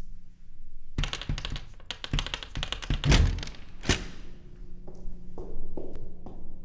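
A quick run of taps and clicks on hard surfaces, with two heavier thunks about three and four seconds in, then a few scattered taps, over a steady low hum.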